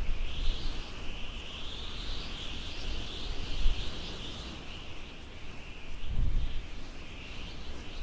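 Outdoor hillside ambience: a continuous high, wavering chirping chorus of small wildlife, with low gusts of wind buffeting the microphone, the strongest about six seconds in.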